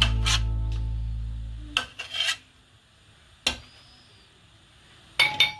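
Music fading out over the first couple of seconds, then scattered kitchen clatter: a few short knocks and scrapes of pots and utensils, with a double knock near the end.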